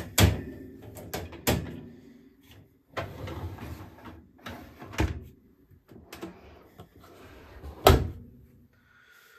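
Bosch Serie 4 dishwasher's wire racks clicking and rattling as they are handled, and the lower basket sliding in on its runners. The door then shuts with a sharp clunk near the end, the loudest sound.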